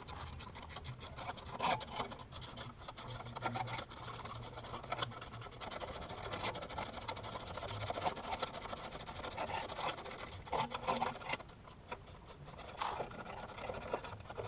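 Scraping and rubbing with many small clicks: hands and tools working at a Catalina 25 sailboat's swing keel under the hull.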